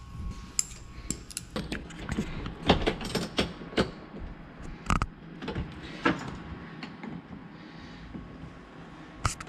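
Battery cable terminals being handled and fitted onto a new battery's posts: irregular clicks, taps and knocks of small metal parts.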